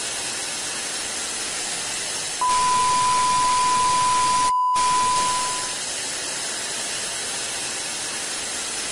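Television static hiss as an outro sound effect, with a steady 1 kHz test-tone beep coming in about two and a half seconds in and lasting about three seconds before fading out. The sound drops out completely for a split second in the middle of the beep.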